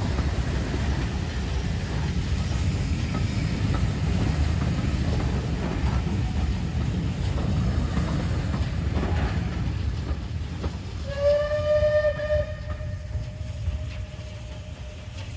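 Steam-hauled passenger train, with Bulleid Pacific 34070 Manston at its head, pulling away: the coaches run past close by with a steady low rumble and a few clacks of wheels over rail joints. About eleven seconds in, the locomotive's whistle sounds once, strongly for about two seconds, then trails off faintly.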